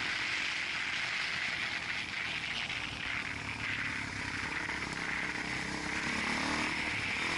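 Steady vehicle noise: an even hiss with a low, constant running sound underneath, with no sharp impacts.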